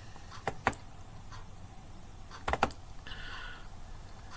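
Computer mouse clicks: two quick pairs of sharp clicks about two seconds apart, over a faint room hum, with a soft short hiss about three seconds in.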